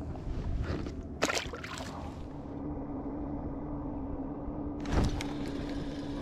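Steady low hum with outdoor noise aboard a fishing boat, broken by a sharp knock about a second in and another near the end.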